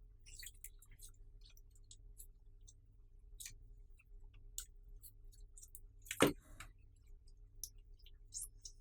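Clear slime being mixed by hand, giving a string of small, irregular sticky clicks and pops, with one louder pop about six seconds in.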